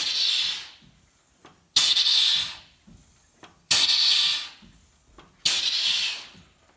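Compressed air venting from the Volvo F89 truck's air system in four short, sudden hisses about every two seconds.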